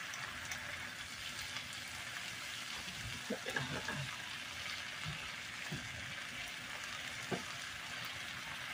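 Diced potatoes, onions and mushrooms frying in oil in a skillet on high heat: a steady sizzle, with a few soft scrapes and knocks of a spatula stirring them, a cluster about three seconds in and single ones later.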